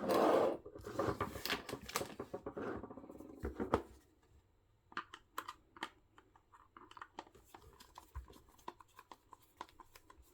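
Breast pump's plastic housing being handled and turned over for disassembly: about four seconds of dense rustling and scraping, then faint scattered clicks.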